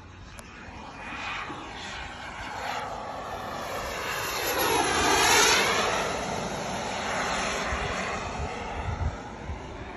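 Rebel Pro radio-controlled model jet with a KingTech K210 turbine making a low pass: the turbine's whine and rush build to their loudest about halfway through, then fade as it flies away.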